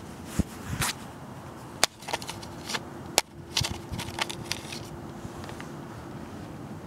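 A series of irregular sharp clicks and taps over a faint steady hiss, thinning out after about four and a half seconds.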